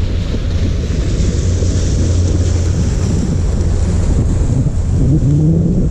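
Small boat under way: wind buffeting the microphone over water rushing and splashing past the hull, with a steady low hum underneath.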